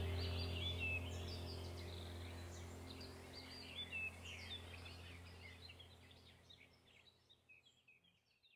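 Birds chirping over a low steady hum, the whole sound fading out gradually and dying away near the end.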